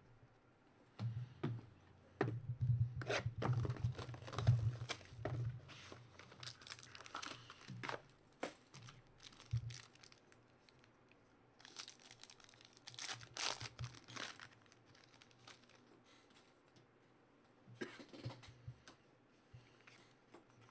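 A foil trading-card pack being torn open and its wrapper crinkled, in crackling spurts: most of the first half, again a little past the middle, and briefly near the end.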